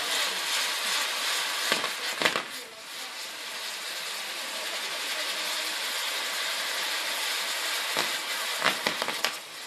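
Spinning firework wheels throwing sparks with a steady hiss, with a few sharp cracks about two seconds in and another cluster near the end.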